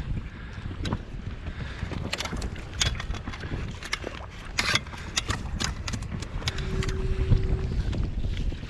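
Wind buffeting the microphone as a steady low rumble, with a run of sharp clicks and knocks in the middle.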